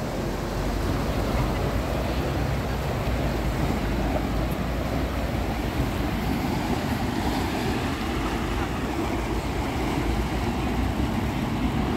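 Floodwater from a burst water pipe rushing and churning along the pavement in a steady, unbroken rush of water.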